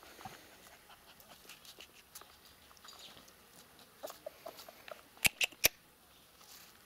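Laika puppy playing around a person's feet on bare ground: faint scuffling with a few short squeaks about four seconds in, then three sharp clicks in quick succession.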